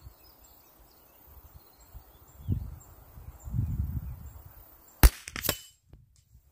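A single shot from a Remington 597 .22 LR semi-automatic rifle about five seconds in, a sharp crack followed a split second later by a second crack. Before the shot there are only faint low rumbles and distant bird chirps.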